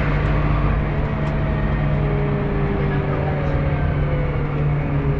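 Scania OmniCity city bus heard from inside the passenger cabin: a steady low engine drone, with a faint whine that slowly slides in pitch. Passengers talk over it.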